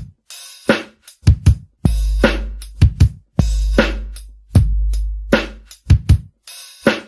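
Instrumental hip-hop beat with no rapping: long, low booming bass kicks every second and a half or so, with sharp snare hits and hi-hats between them.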